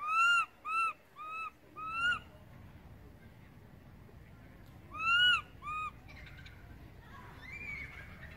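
Baby long-tailed macaque crying for its mother: four shrill, arched coo-calls in quick succession, then two more after a pause of about three seconds. The first and fifth calls are the longest.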